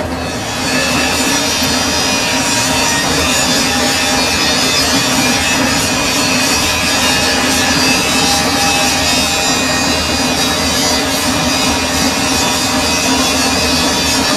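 Metal lathe running with a steady hum, and a continuous rasping metal-cutting noise that sets in about half a second in as the tool works the steel.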